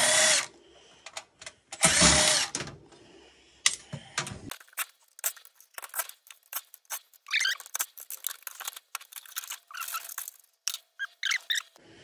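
Cordless power driver whirring in two short bursts as it backs out the two screws holding a motherboard in a steel computer case. Scattered small metallic clicks and rattles follow for several seconds.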